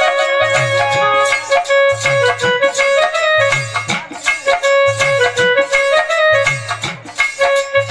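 Instrumental music: a melody of long held notes over a repeating pattern of low drum strokes, with no voice.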